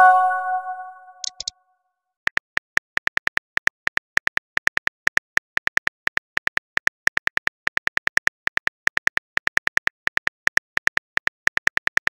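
Texting-app sound effects. A short synthetic chime rings out and fades at the start, then a long run of rapid keyboard tap clicks follows, about six a second, as a message is typed out.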